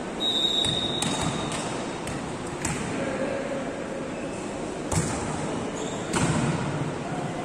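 A short, steady referee's whistle blast, then a volleyball struck several times in a rally: sharp hits about a second in, near three seconds, a loud one about five seconds in and another around six.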